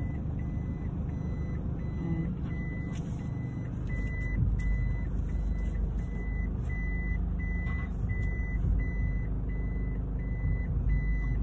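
A vehicle's electronic warning beeper sounding steadily, about three short beeps a second at one pitch, over the low rumble of the engine heard inside the cabin.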